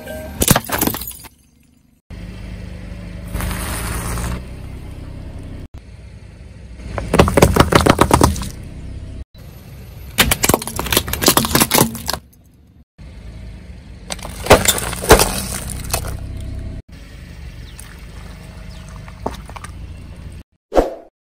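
A car tyre rolling over objects and crushing them: a glass snow globe and plastic sunglasses crack and shatter in about five loud crunching bursts, with steady car and tyre noise between.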